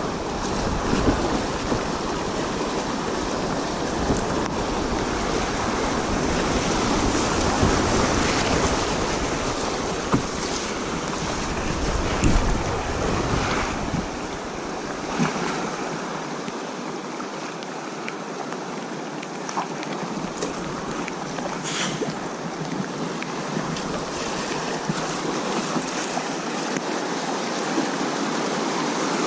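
River water rushing around a kayak, a steady wash of noise, with wind buffeting the microphone for the first half and a few short knocks or splashes scattered through.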